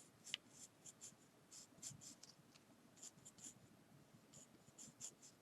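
Faint pencil scratching on paper in many quick short strokes, sketching fur on a wolf drawing.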